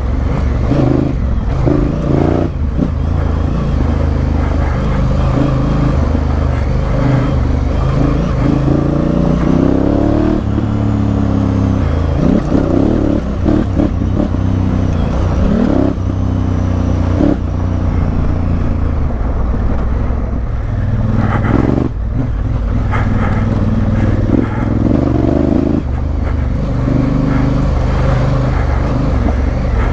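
Honda Africa Twin CRF1000L's parallel-twin engine and exhaust running under load off road, the engine note rising and falling again and again as the throttle is opened and closed.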